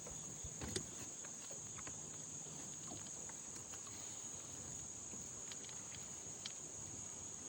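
Steady high-pitched insect chirring, like crickets or cicadas, with a few faint clicks and knocks.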